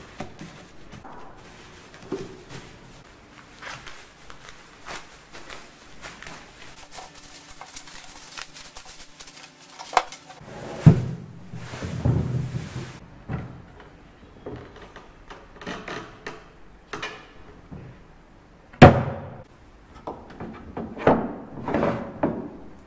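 Plastic sheeting rustling and crinkling as it is pulled off a wooden chest, for about the first dozen seconds. Then a series of separate knocks and clunks, the loudest a sharp knock about two-thirds of the way through.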